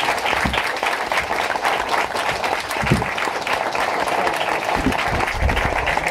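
Audience applauding steadily, with a few dull low thumps about half a second, three seconds and five seconds in.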